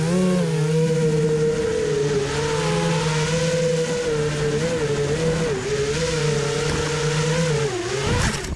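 Motor of a radio-controlled vehicle running at speed: a steady whine that wavers up and down in pitch with the throttle, over a rushing noise. Near the end the pitch drops and the motor cuts off, followed by a couple of sharp knocks.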